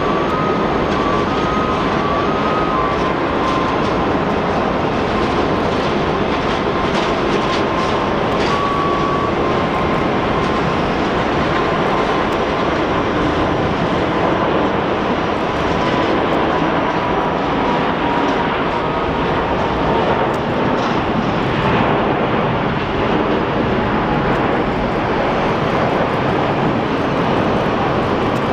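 Four-engine Airbus A380 jet engines (Rolls-Royce Trent 900) running at takeoff thrust during the takeoff roll: a loud, steady roar with a faint whine slowly falling in pitch.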